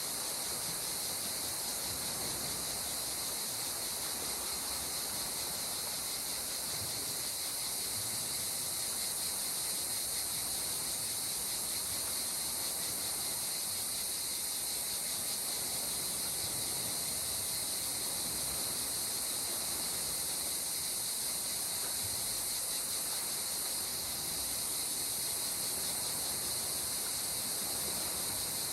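Steady insect chorus: an even, high-pitched drone that holds without change, over a soft, constant hiss.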